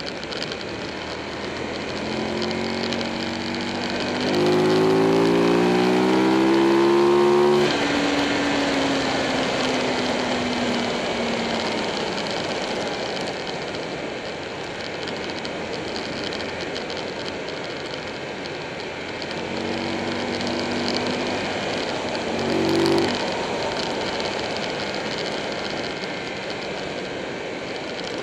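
Buell 1125R's V-twin engine pulling hard out of a bend, its note climbing, then cut off suddenly as the throttle is closed, and sinking as the bike slows. Wind rush fills the gaps, and the engine climbs and cuts off again about three quarters of the way through.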